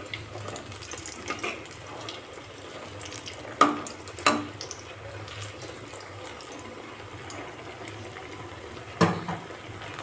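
Batter-coated brinjal slices sizzling steadily in hot oil in a kadai. A metal slotted spatula clinks sharply against the pan about three and a half seconds in, again just after four seconds, and near the end.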